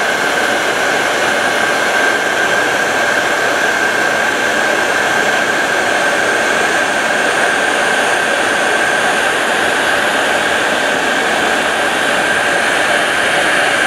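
Heat gun blowing steadily: a rush of air with a steady high whine from its fan, as it shrinks heat-shrink tubing over soldered wires.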